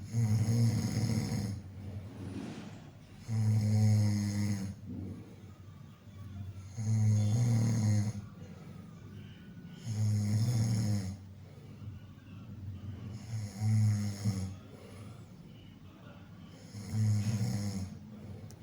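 Snoring: six loud, low snores, one about every three and a half seconds, each lasting a second or so, with quieter breathing between them.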